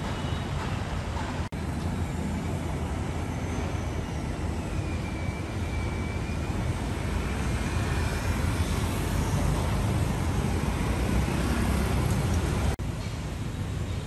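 Road traffic on a city street, a steady low rumble of passing cars and motorbikes that swells a little in the second half. The sound cuts out for an instant twice, at the edits between shots.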